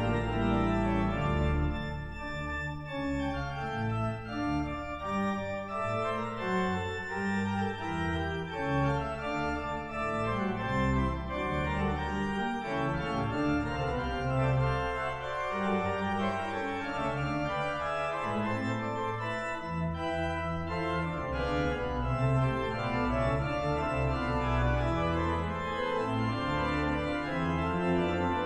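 Pipe organ 'Lucy', a C.B. Fisk concert organ, played with several voices moving together over a sustained bass line on the pedals.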